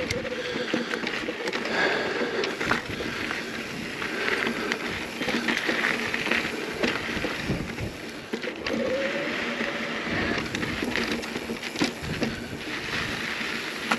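Mountain bike riding over a dirt and rock trail: tyre noise on the ground with a run of rattling clicks and knocks from the bike over bumps.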